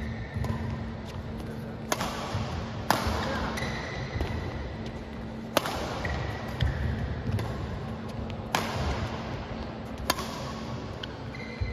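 Badminton singles rally: five sharp racket strikes on the shuttlecock, irregularly spaced one to three seconds apart, each followed by a short echo, with a few brief high squeaks between shots.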